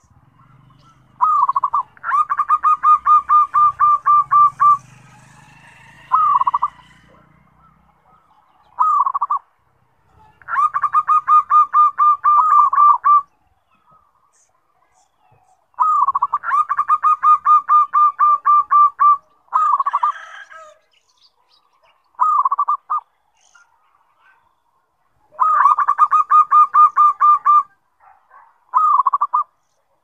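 Zebra dove (perkutut) singing loudly: four long phrases of a rapid rolling coo, each two to three seconds long, with short single coos between them.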